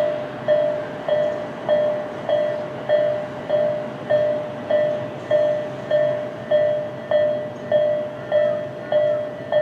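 Japanese railroad crossing warning bell ringing its steady electronic 'kan-kan' ding, just under two evenly spaced strikes a second, each fading before the next.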